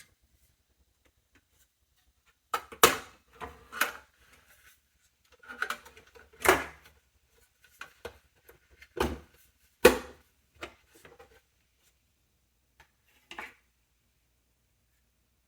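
Sharp clicks and knocks of hard parts being handled and fitted in a small form factor desktop PC case, at uneven intervals, during a graphics card install. The loudest come about three, six and a half, nine and ten seconds in.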